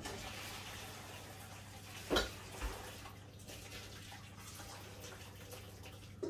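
Pasta water being poured off through a colander, a steady rush of water, with a knock about two seconds in and a softer one just after.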